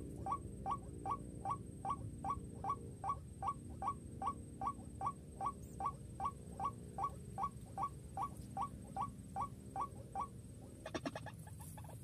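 White-breasted waterhen calling: a steady run of short, rising notes, about two and a half a second, that stops about ten seconds in. A burst of fast rattling pulses follows near the end.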